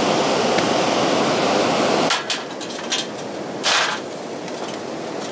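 A steady rushing noise drops away about two seconds in. It is followed by a few metal clicks and a short scrape as a stainless-steel folding charcoal grill is unfolded and set up on gravel.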